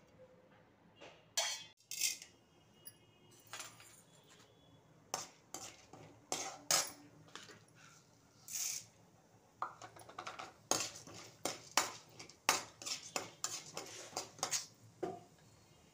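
Metal spoon clinking and knocking against a metal cooking pan in irregular strikes, coming thicker through the second half.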